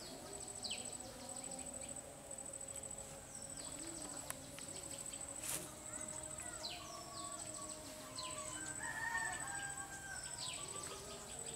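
Rural outdoor ambience: a steady high-pitched insect trill, and a bird's short falling calls repeating every second or two. A rooster crows about eight seconds in.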